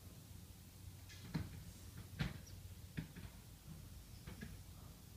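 Sleeping pet breathing quietly between snores, with a few short snuffling clicks, the loudest about two seconds in.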